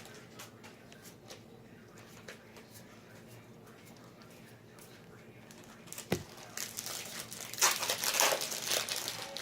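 Trading card packs being handled, then torn open with their wrappers crinkling. There is quiet rustling at first, a sharp click about six seconds in, then louder bursts of crinkling and tearing.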